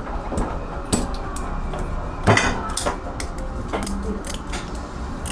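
Clatter of dishes and utensils being handled: a run of separate sharp clinks and knocks over a steady low background hum.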